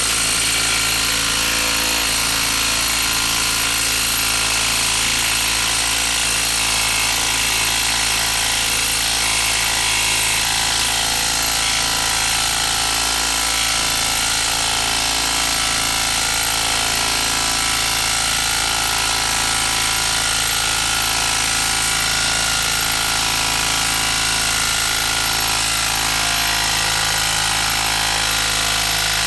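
Hilti cordless impact driver hammering steadily and without pause as it drives a 10-inch lag screw into a wood stump under heavy load.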